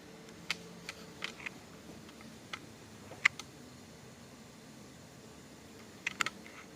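Scattered light clicks and taps, about ten spread unevenly, the loudest a little over three seconds in and a quick pair near the end, over a steady low hum.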